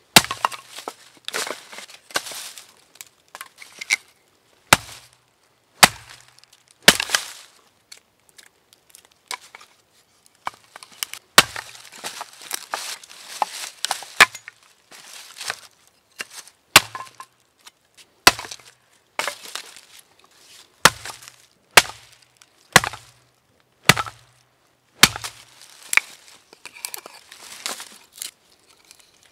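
Axe chopping wood: sharp strikes every second or two at an uneven pace, with softer noises between them.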